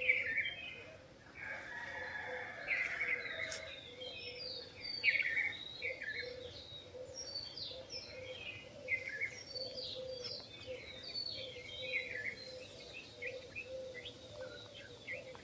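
Dawn chorus of many small birds, with quick, separate high chirps and tweets overlapping throughout. A faint steady hum runs underneath.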